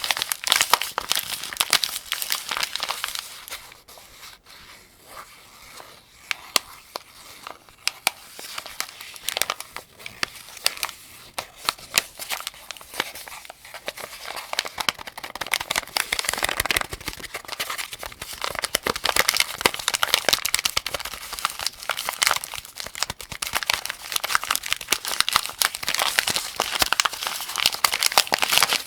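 Cartridges being pushed one by one into a 75-round AK-47 drum magazine: a dense, uneven run of metallic clicks and rattles, quieter for a few seconds near the start, then busy again.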